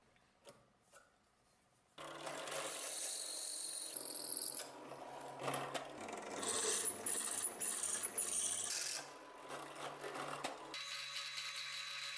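Drill press running, its bit cutting into the steel tang of a knife with a rough grinding, scraping noise that comes and goes in several spells. Two light clicks come before the motor starts about two seconds in, and near the end the drill spins on steadily without cutting.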